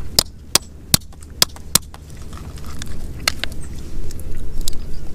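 Cooked shellfish shell being cracked and picked apart by hand: sharp little snaps and clicks, about five quick ones in the first two seconds, then scattered clicks with rough rubbing near the end.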